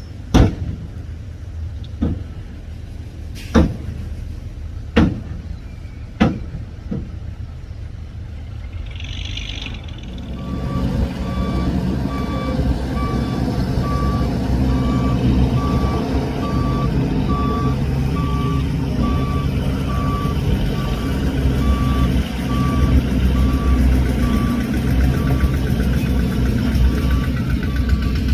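Five sharp knocks about a second and a half apart. Then, about ten seconds in, a heavy machine's engine rises under load and its reversing alarm beeps steadily, about two beeps a second, over the rumble.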